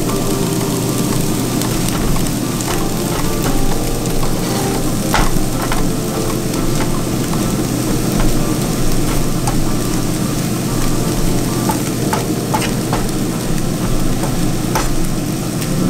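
Diced bell peppers and green onions sizzling in a nonstick frying pan while a wooden spoon stirs them, scraping and tapping against the pan now and then.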